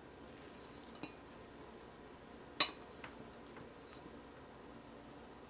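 A steel mixing bowl clinks once sharply against a metal pizza pan as risen pizza dough is tipped out of it, with a couple of fainter ticks about a second in and just after the clink.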